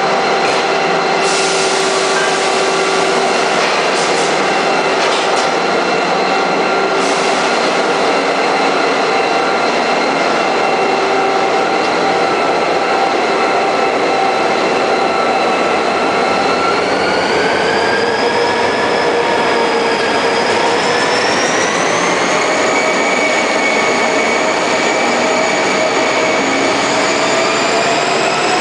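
Train locomotive running loudly alongside the platform with a steady, many-toned drone. The drone rises in pitch about halfway through and again near the end as the train picks up speed. A few brief hisses come in the first several seconds.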